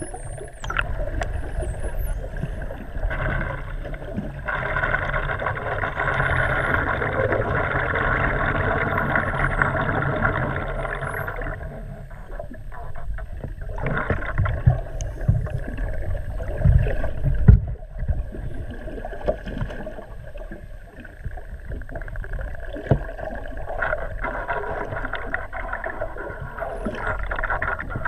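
Underwater recording: a steady boat engine and propeller hum through the water, louder in the middle and again near the end, with faint high common dolphin whistles gliding up and down now and then. A few low thumps about halfway through.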